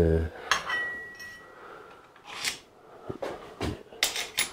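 Small steel parts and tools handled on a workbench: scattered clicks and clinks, one of which rings briefly with a thin high tone about a second in.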